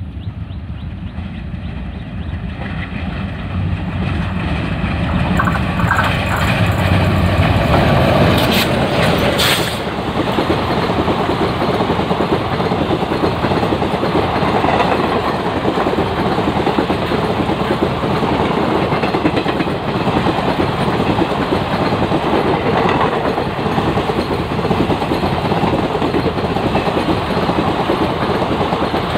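Alco WDG3A diesel locomotive hauling a passenger train approaches and runs past at speed, growing louder to a peak about eight seconds in. Then comes the steady rumble and clickety-clack of ICF coaches rolling past on the rails.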